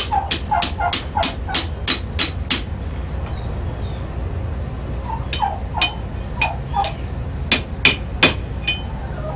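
Blacksmith's hammer striking hot rebar on the anvil while shaping a trowel handle, about three blows a second in two runs with a pause between them.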